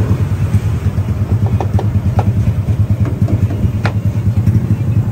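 Engine idling steadily with a fast, low, even throb. A few light clicks sound in the middle.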